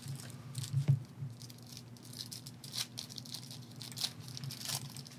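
Trading cards being handled: irregular rustles, flicks and light clicks of cards and packaging, the sharpest about a second in.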